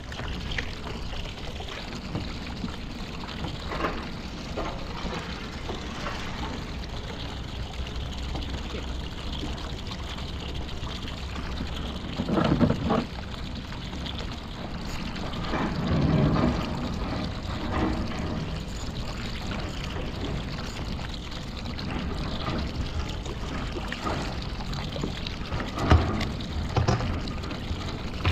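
Water lapping and trickling around a kayak hull, with a few louder, sudden handling sounds about 12 and 16 seconds in and again near the end.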